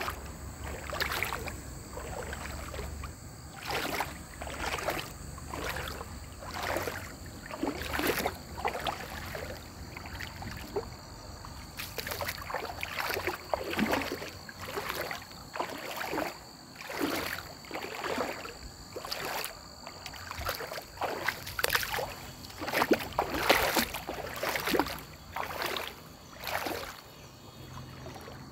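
Footsteps of a person wading along a shallow river through water and grass, about one step a second.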